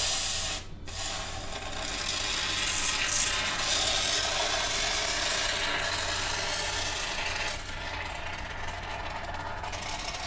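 Can of expanding spray foam hissing as it is sprayed through its straw nozzle. The hiss breaks briefly under a second in, runs steadily, then gets weaker about seven and a half seconds in, over a low steady hum.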